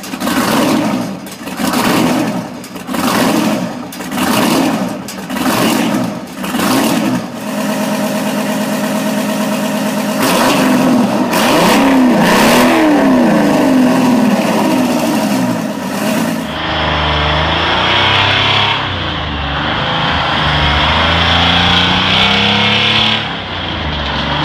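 Detroit Diesel 12V71, a supercharged two-stroke V12 diesel, revved in short blips about once a second, then held up with its pitch swinging up and down. About two-thirds of the way through, the sound cuts to a deeper-sounding 12V71 in a road-train truck running under load, its pitch climbing.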